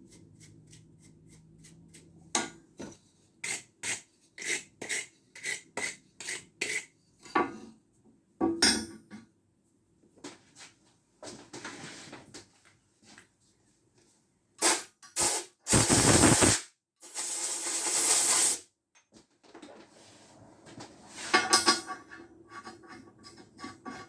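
Metal clinking and clicking from hand-tapping M10 threads in a steel welding table, starting with a run of ringing clicks about two a second, then scattered knocks. About two-thirds through comes a loud rushing hiss lasting two or three seconds.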